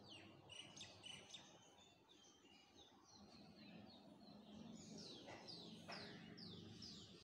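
Faint bird calls: short high chirps that fall in pitch, scattered at first, then a quick run of about five, roughly two a second, near the end.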